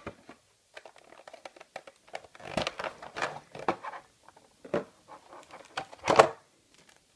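Clear plastic blister tray and film packaging being handled and pulled open, with irregular crinkling and crackling that is loudest about six seconds in.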